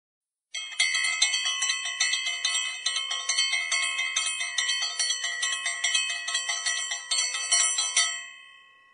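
Bright bell chimes struck in a quick, steady run of several strikes a second, stopping near the end and ringing away.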